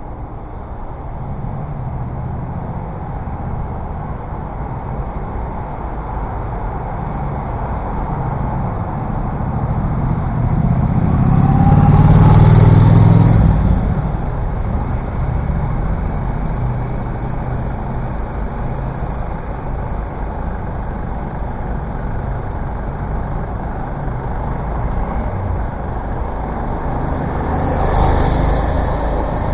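City road traffic heard from the road, a steady roar of engines and tyres. It swells loudly as a large motor vehicle passes close about halfway through, and again more briefly near the end.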